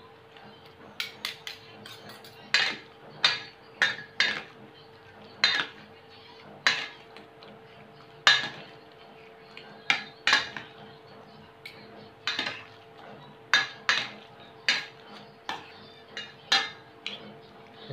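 Fork clinking and scraping against a stainless steel mixing bowl while mixing a moist crab meat and vegetable filling with beaten egg: irregular sharp clinks about once or twice a second.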